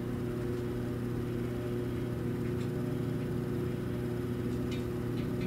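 A vinyl record playing on a Technics SL-B20 belt-drive turntable, heard through the stereo speakers: a steady, low, sustained sound.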